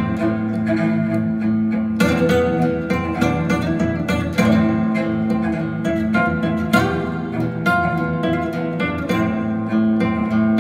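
Plucked guitar music played back through a pair of SABA Green Cone full-range speakers in Bongo cabinets, driven by a 300B tube amplifier; a steady run of picked notes over held low notes.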